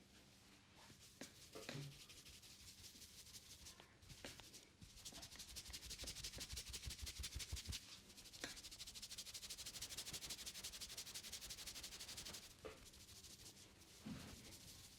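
Hands rubbing fast through a person's hair and over the scalp during a head massage: a faint, quick rhythmic rustle, with a few soft clicks.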